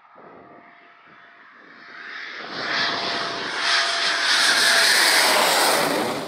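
Eurofighter Typhoon on landing approach with gear down, the jet noise of its twin EJ200 turbofans growing steadily louder as it comes closer, rising to a loud rush about two and a half seconds in, with a thin steady whine running through it.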